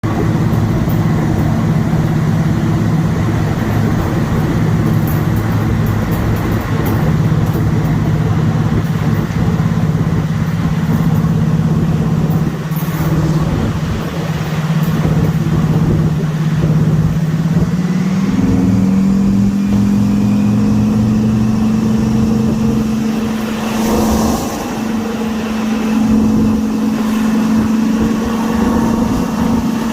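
The twin Napier Deltic two-stroke opposed-piston diesel engines of a British Rail Class 55 Deltic locomotive thrashing under full power, heard onboard. A loud, steady engine note rises in pitch a little past halfway and holds at the higher note.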